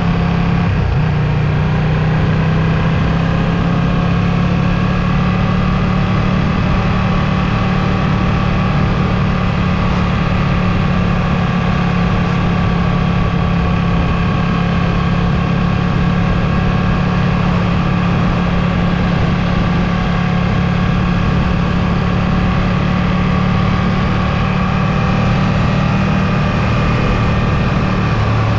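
Ducati Streetfighter V2's 955 cc L-twin engine running steadily under way, its pitch drifting only slightly up and down, with no sharp revs or pauses.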